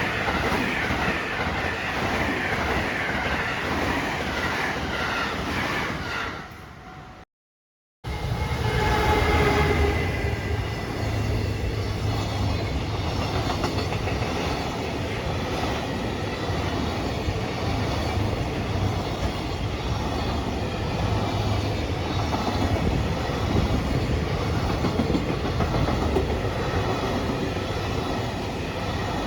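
Electric commuter train running on the rails, a steady rumble of wheels and cars. The sound fades and cuts out completely for about a second roughly seven seconds in, then the train noise resumes and carries on steadily.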